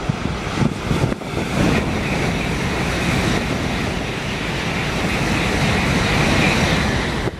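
Tokaido Shinkansen bullet train passing through a station at high speed without stopping: a loud, steady rushing hiss that builds over the first couple of seconds and holds as the long train streams past. Low gusty rumbles of wind on the microphone run underneath.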